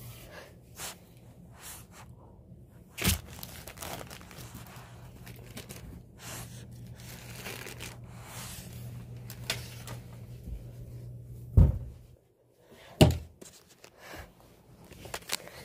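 Handling noise as plush toys are moved about by hand and the phone is shifted: soft rustling and scraping, with a few sharp knocks, one about three seconds in and two close together near the end.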